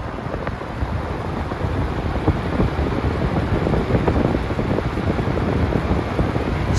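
Airflow from a Lasco-made Super 20-inch box fan blowing straight into the camera microphone: a steady rush of wind noise with a heavy low rumble.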